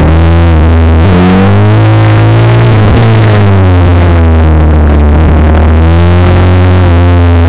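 Electronic music with a heavy, steady bass and synthesizer tones that glide up and down in pitch.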